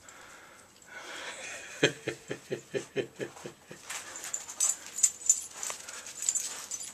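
A dog gives a quick run of short whimpering yips, about five a second, for a couple of seconds. After that come scattered crunching and rustling noises as the dog plows through the snow.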